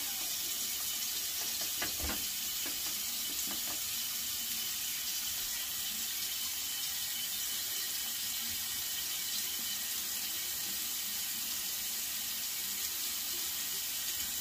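Water tap running steadily into a sink.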